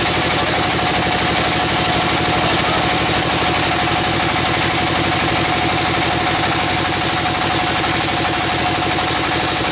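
Sawmill machinery running steadily: an engine chugging with a fast, even pulse, over a constant high whine from the saw as a squared timber beam is fed along the mill.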